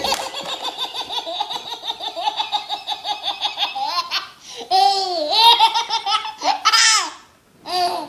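Baby belly-laughing: a long run of rapid, high-pitched laughter for about four seconds, then a few shorter squealing bursts of laughter.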